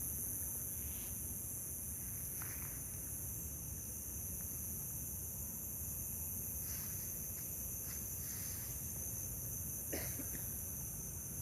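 A steady, high-pitched chorus of night insects, likely crickets, with a low background rumble. A few faint rustles come through, and there is one sharper click about ten seconds in.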